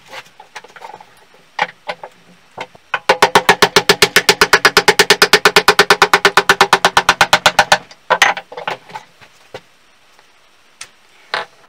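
A small hammer tapping rapidly and evenly on the steel of a chisel clamped in a bench vise, about ten ringing metallic taps a second for nearly five seconds. Before and after come scattered knocks and clinks of tools being handled on the bench.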